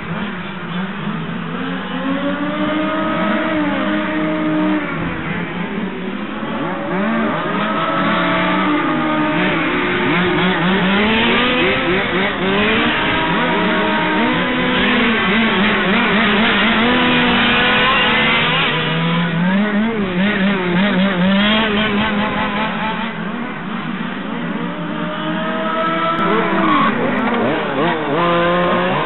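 Several 1/5-scale petrol RC touring cars' small two-stroke engines buzzing as they race, many engines overlapping with pitches rising and falling as they accelerate down the straights and lift off for corners. The sound is loudest and busiest about halfway through.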